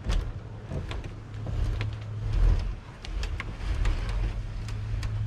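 Jayco Swift camper trailer's pull-out bed base sliding out on its runners: a scraping rumble that swells about halfway in, with scattered clicks and knocks.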